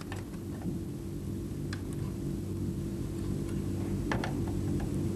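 Steady low electrical hum with a few faint, isolated clicks.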